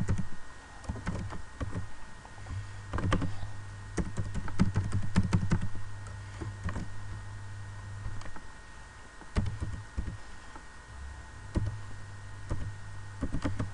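Typing on a computer keyboard: irregular keystrokes, some in quick runs and some spaced apart, over a steady low hum.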